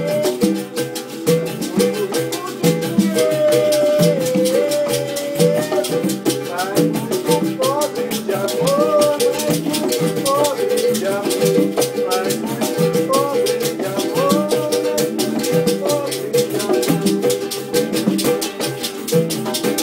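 Live acoustic Latin-Brazilian jam: congas, berimbau, pandeiro and acoustic guitar playing together in a steady, busy rhythm, with a constant rattling jingle over the drums.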